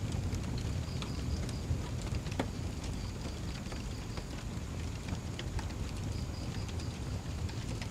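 Wood fire crackling, with scattered sharp pops over a steady low rumble. A faint high trill repeats in short spells a few times.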